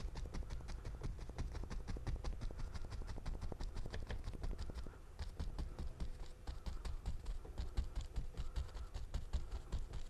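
A 1-inch brush loaded with white oil paint tapped repeatedly against a stretched canvas: quick, even taps, several a second.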